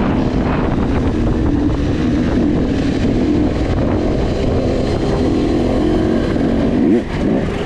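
Trail dirt bike engine running under way, its pitch wavering with the throttle. The revs climb briefly about seven seconds in, then drop off.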